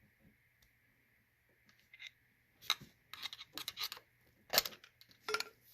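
Metal tool clinking and clicking against a rocker arm in the Dodge Neon SRT-4's open cylinder head as the stuck rocker is nudged off its valve. After a quiet start, a cluster of sharp metal clicks begins about two and a half seconds in.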